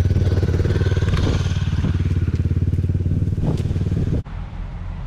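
Red dual-sport motorcycle's engine running steadily close by, a loud, fast, even pulse. It cuts off suddenly about four seconds in, leaving quieter road traffic.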